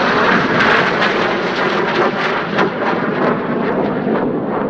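Red Arrows BAE Hawk jet noise passing by: a loud rushing from the Rolls-Royce Adour turbofan with a run of sharp crackles, easing slightly near the end.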